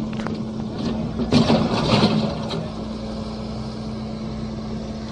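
Excavator's diesel engine running steadily, with a few louder rough bursts of noise about one and a half to two seconds in.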